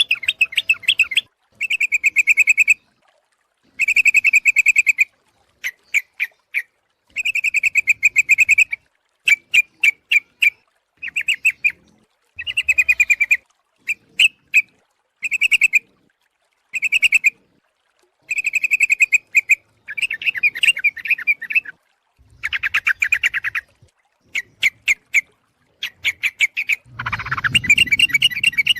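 Yellow-vented bulbul (trucuk) calling: short, bubbly chattering phrases of rapid notes, repeated every second or two with brief pauses, played as a bird-trapping lure call. Near the end a longer, denser burst of chatter.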